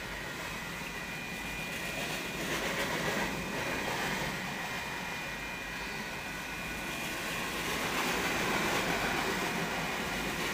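Freight train cars rolling past a grade crossing: a steady rumble of wheels on rail, swelling louder a few times as cars go by.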